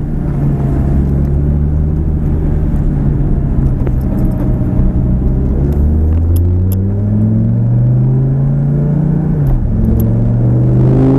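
Lamborghini Gallardo's V10 engine heard from inside the cabin, running steadily at low speed, then rising in pitch as the car accelerates from about six seconds in. Near the end the pitch drops suddenly at an upshift and climbs again.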